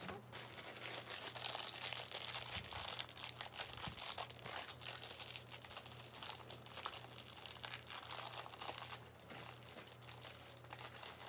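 Plastic packaging crinkling and rustling as a toy is unwrapped by hand, a dense run of fine crackles that eases off near the end. A steady low electrical hum lies underneath.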